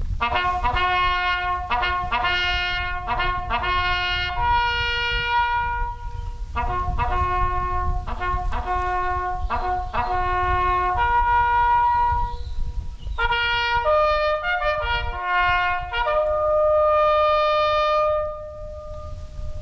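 Solo trumpet sounding a military bugle call: runs of quick repeated notes broken by long held notes, closing on a long held note near the end.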